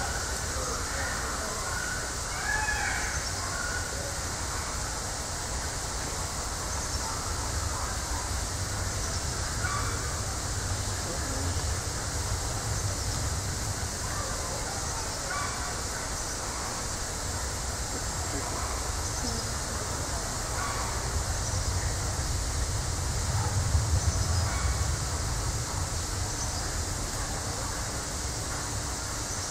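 Steady hissing background noise with a low rumble under it, with faint scattered short sounds over it and a brief swell toward the end.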